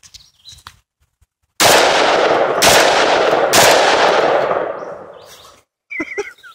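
Tromix-modified Saiga-12 semi-automatic 12-gauge shotgun firing three rapid shots about a second apart, very loud close to the gun, the blasts running together and echoing away over about two seconds.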